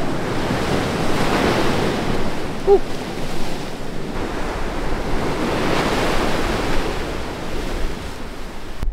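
Ocean surf breaking over rocks and washing up a sandy beach, swelling twice as waves come in.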